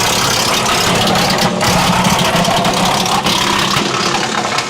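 Wallenstein BX72S PTO-driven wood chipper chipping larger branches: a loud, dense chipping noise over the steady running of the LS XR3135 tractor's diesel engine driving it, easing slightly near the end.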